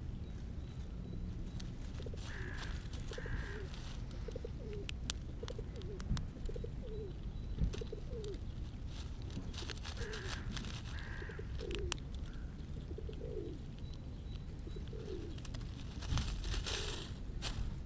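Pigeon calling: short low notes, about one a second, some in pairs. A second, higher bird call comes twice, and there are a few sharp clicks and a burst of rustling near the end.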